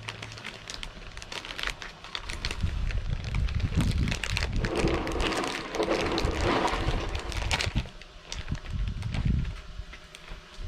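Plastic bag rustling and crinkling with scattered clicks and dull bumps as fish pieces are pushed into it, busiest through the middle and easing off near the end.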